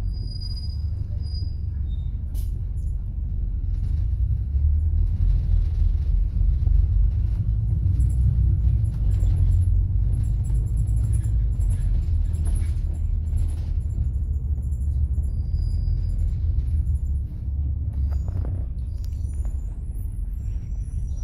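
Inside a moving city bus: a steady low rumble of engine and road noise that swells a few seconds in and drops back near the end.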